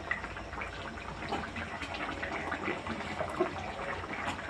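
Egg curry gravy bubbling as it simmers in a pan: a steady run of many small pops.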